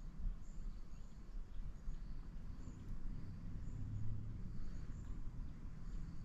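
Outdoor ambience: faint, short, high chirps of small birds repeating irregularly over a steady low rumble.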